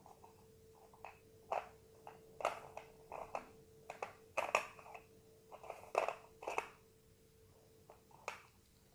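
Slate pencil being bitten and chewed: a string of irregular, crisp crunches, about a dozen, with a pause before one last crunch near the end. A faint steady hum runs underneath.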